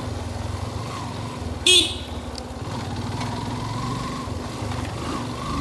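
Motorcycle riding along with a steady engine and road rumble. A short, sharp horn toot sounds about two seconds in.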